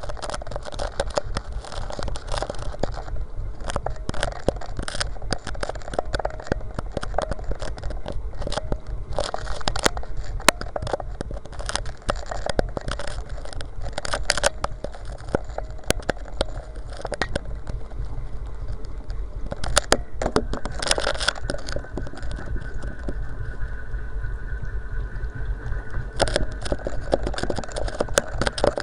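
Continuous crackling and scraping with many sharp clicks: a keychain camera rubbing and knocking along the inside of a 4-inch PVC well casing as it is lowered down the well on its line. A faint steady whine joins about two-thirds of the way through.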